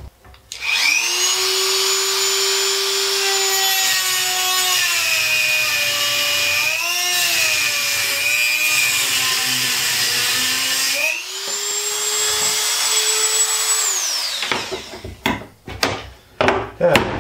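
Dremel rotary tool running with a high-pitched whine as it cuts off a small tab. Its pitch sags and wavers under load in the middle of the cut. It stops briefly, runs again for about three seconds, then winds down, followed near the end by knocks and clatter of clamps being handled.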